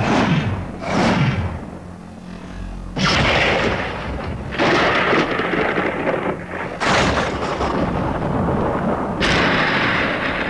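Thunder-themed lightsaber sound font: two swing whooshes rising and falling over a steady low hum. From about three seconds in comes a run of four thunder-crack clash sounds, each cutting in suddenly and lasting a second or two.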